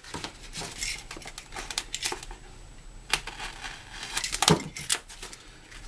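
Foam edge strips being handled and pressed into place, their paper release backing rustling and crinkling, with scattered light clicks and a few louder knocks about three and four and a half seconds in.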